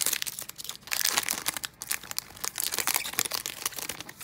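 Foil wrapper of an Upper Deck hockey card pack being torn open and crinkled in the hands, a dense crackling that stops abruptly at the end.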